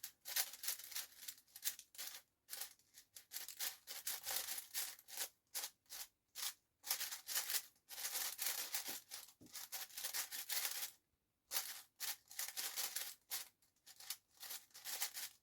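Plastic speedcube being turned quickly, its layers scraping and clicking in fast, irregular strokes with short pauses between turning sequences.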